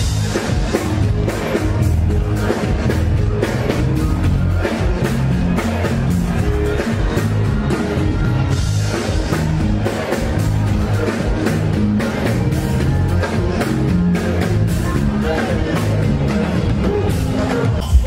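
Afrobeats song played loud through a concert sound system, with a steady beat and heavy bass.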